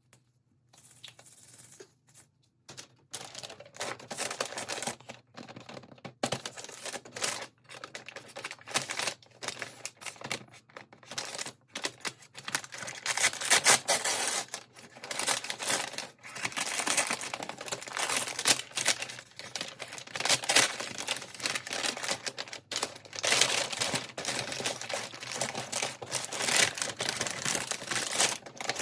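Toy packaging being handled and opened by hand: an irregular run of plastic and cardboard crinkling, tearing and clicking, faint at first and louder from about three seconds in.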